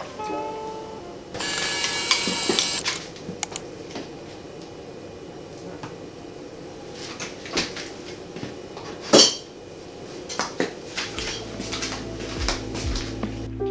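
Kitchen handling sounds: a metal straw stirred and clinking in a glass of iced coffee, loudest for a second or two near the start, then scattered knocks and clicks as the fridge is opened and food is taken out, with one sharp click about nine seconds in and a low hum near the end.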